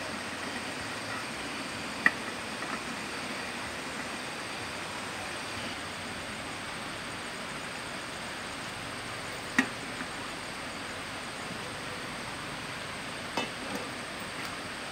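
Sharp metal clinks of a camping kettle being handled on a portable gas stove, three separate times, the loudest about ten seconds in, over a steady hiss.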